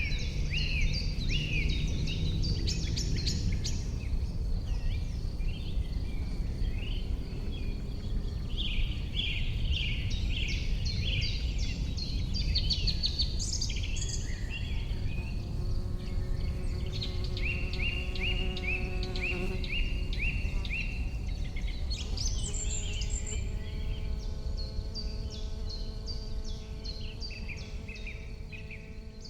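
Riverside birdsong: several small birds singing fast, repeated, chattering phrases over a steady low background noise. A buzzing hum with several tones comes in twice, in the middle and again toward the end, and the whole sound fades out near the end.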